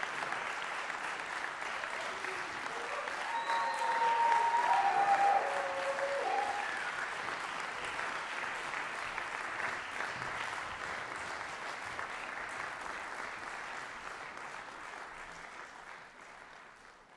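Concert audience applauding, with a few cheers rising over the clapping a few seconds in, then the applause fades away near the end.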